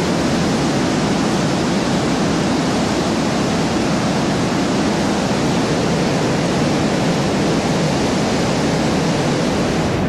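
Waterfall pouring over rock into a pool: a loud, steady rush of falling water.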